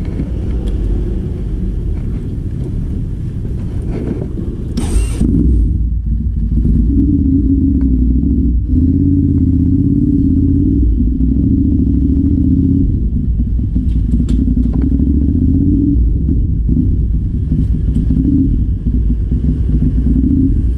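Ducati Monster 696's air-cooled L-twin running through a Termignoni exhaust, getting louder about six seconds in as the bike rides off and then running steadily under way. A brief burst of noise about five seconds in.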